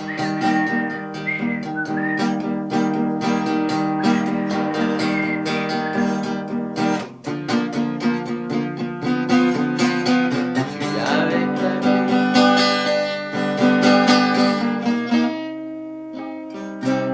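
Acoustic guitar playing an instrumental interlude between sung verses of a song, with plucked notes ringing over held chords. A thin wavering melody line sounds above the guitar in places.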